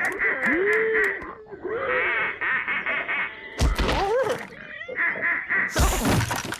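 Cartoon animal characters making wordless comic vocal sounds. A nasal, buzzing chatter comes and goes in short spells, with a sliding grunt about half a second in and a loud, sharp noise near the end.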